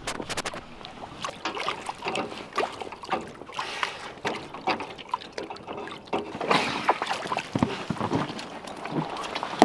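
Water sloshing and splashing against the side of a small sailboat, with irregular knocks and clicks.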